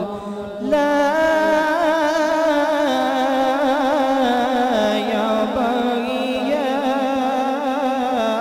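A man's voice in melodic Quran recitation (tilawat), drawing out long, wavering notes into a microphone after a short breath at the start.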